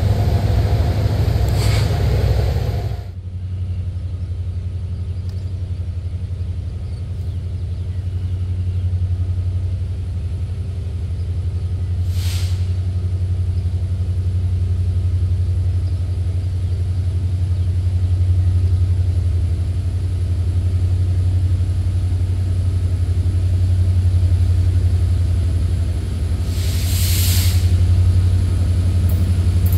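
Diesel locomotives of a coal train idling out of sight, a steady low rumble, with two brief hissing noises, about 12 seconds in and near the end. A louder engine sound cuts off sharply about three seconds in.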